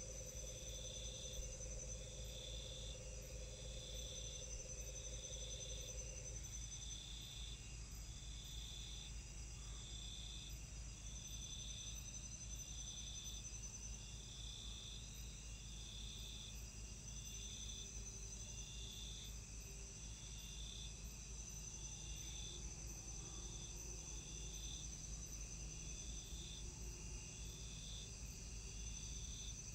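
Amazon rainforest insects: one chirps in an even pulse a little faster than once a second over a continuous high-pitched insect drone, with a low steady hum underneath.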